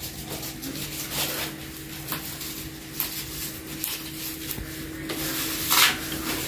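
Leaves and tender shoots being stripped by hand from leafy vine stems: irregular soft rustling and small crackles, with a louder rustle near the end. A low steady hum runs underneath.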